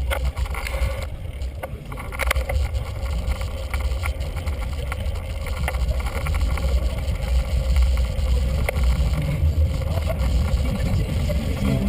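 Wind buffeting the microphone and road rumble from a bicycle-mounted camera during a ride, sped up four times, with scattered small knocks from bumps in the path.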